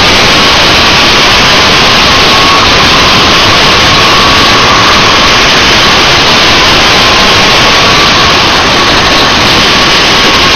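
Two-stroke 125 cc racing kart engine running at speed, heard from a helmet camera and largely buried under loud wind rush on the microphone, its note wavering slightly.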